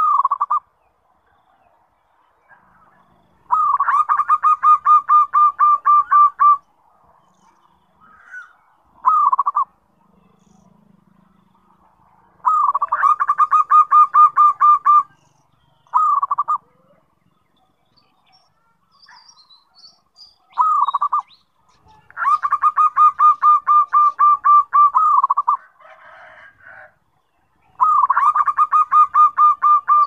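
Zebra dove (perkutut) singing loudly: long phrases of rapid, evenly pulsed coos, about four of them, each a few seconds long, with short single coos in between.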